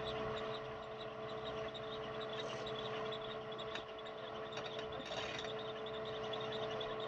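Jeep Cherokee XJ running steadily while crawling a rock ledge, a constant hum with a few faint ticks and knocks from the rocks.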